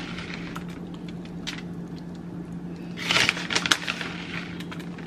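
Scattered light crackles and rustling from hands sprinkling shredded cheese over stuffed peppers in a foil-lined pan, busiest about three seconds in, over a steady low hum.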